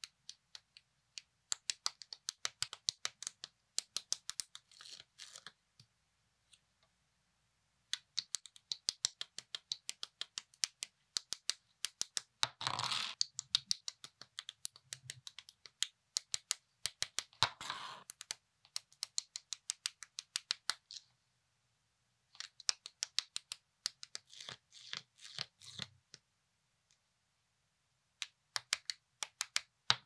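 Lego bricks being snapped together by hand: quick runs of sharp plastic clicks, broken by short silent gaps, with two brief scraping sounds of pieces rubbing around the middle.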